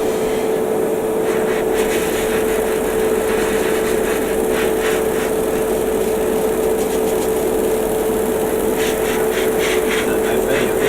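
Small airbrush compressor running with a steady hum, joined by short hissing bursts of air from the airbrush twice: about four seconds in and again near the end.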